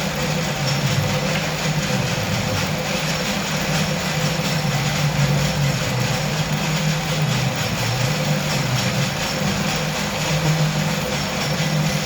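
Steady machine noise: an even hiss over a low hum that swells and fades every few seconds.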